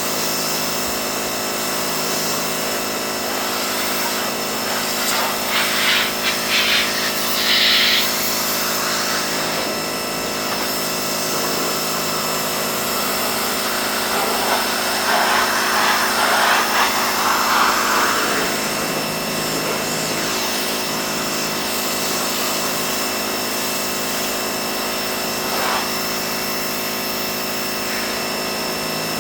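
Pressure washer running with a steady drone, growing louder in two spells: about five to eight seconds in, and again about fourteen to eighteen seconds in.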